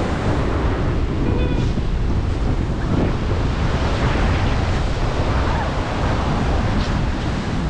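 Steady sea surf on a beach, with wind buffeting the microphone.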